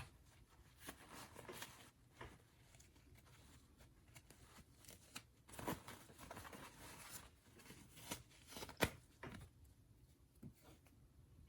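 Doll packaging being handled during unboxing: faint scattered rustling and crinkling with light clicks and taps, the sharpest click about nine seconds in.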